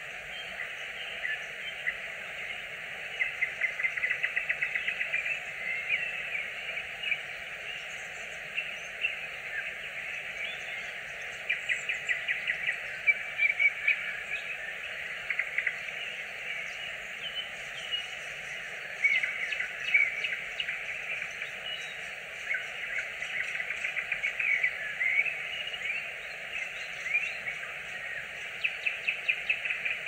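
Nightingale singing: phrases of fast repeated notes alternate with single whistles and chirps, over a steady background hiss.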